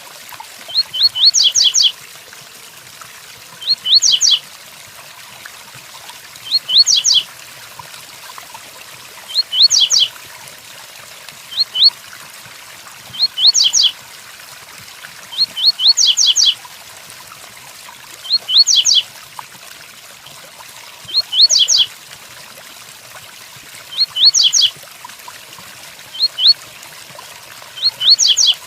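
Double-collared seedeater (coleiro) singing its 'tui tuí' song: a short phrase of quick, high sweeping notes repeated about every two and a half seconds. Steady rain hiss runs underneath.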